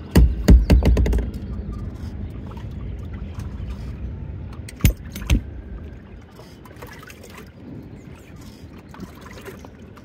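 Loud knocks and thumps on a boat, several in quick succession in the first second and a half, then two more sharp knocks about five seconds in, over a low rumble.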